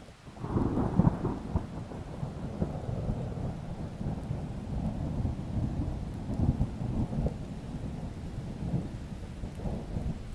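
Thunder breaks suddenly about half a second in with a loud crackle, then rolls on as a long low rumble that eases off near the end, over a steady hiss of rain.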